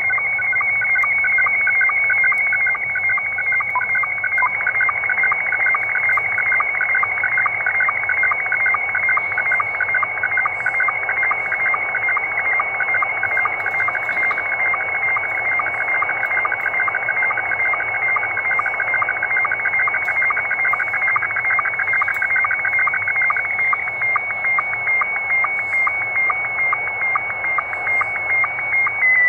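Slow-scan television (SSTV) image signal received over shortwave in upper sideband: a continuous warbling stream of tones with an even, rhythmic ticking of line sync pulses, over band static.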